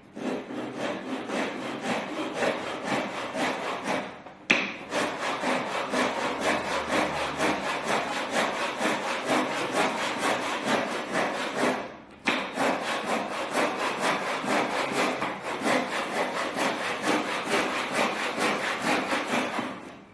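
Back saw cutting across a piece of wood held on a bench hook, in steady rhythmic push-pull strokes. The sawing breaks off briefly twice, about four and twelve seconds in, and stops near the end as the cut goes through.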